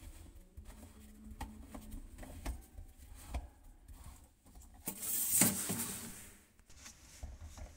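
Hard plastic sink waste fittings being handled: scattered small clicks and rubbing as the corrugated plastic waste hose's threaded coupling is worked onto the underside of the sink strainer, with a louder scraping rustle about five seconds in.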